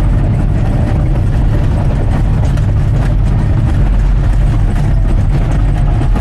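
Bulldozer diesel engine running steadily with a deep low drone as the dozer touches up side slopes.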